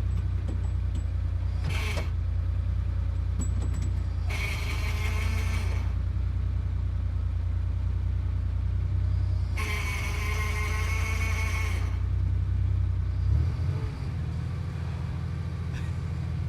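Sports car engine idling with a steady low hum while its gearbox will not go into first. There are three short bursts of a harsher, higher noise, the longest about ten seconds in. About 13 seconds in, the engine note dips and settles at a different pitch.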